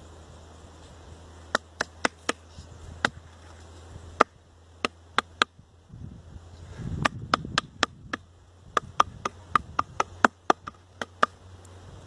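Sharp, irregular knocks, like taps on wood, coming in two runs of several each, a few a second at most, over a low steady hum.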